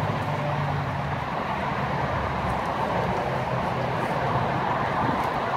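A steady low motor hum over a constant rushing noise, drifting slightly lower in pitch about halfway through.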